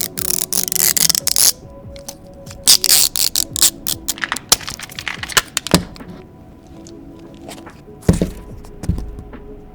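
Kinetic sand being cut, pressed and crumbled: crisp crunching and scraping bursts with sharp clicks, and a few soft thuds about six and eight seconds in, over light background music.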